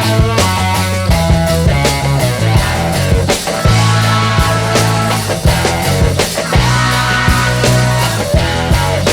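Background rock music with a heavy bass line and a steady drum beat.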